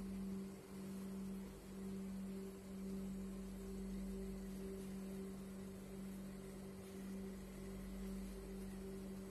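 Electric motors of a pappad dryer machine, its blower motor and chain-drive motor, running with a steady low hum and a fainter tone an octave above.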